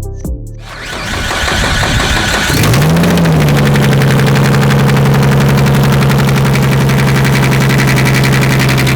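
Car engine cranking and firing up, flaring briefly, then settling to a steady idle with a rapid ticking knock. The knock comes from a massive exhaust leak at a broken header bolt and sounds like rod knock, though it isn't.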